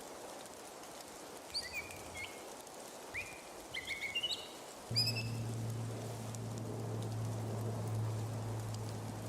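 A small bird chirping several short, quick notes over a steady background hiss. About halfway through, a steady low hum starts abruptly and continues.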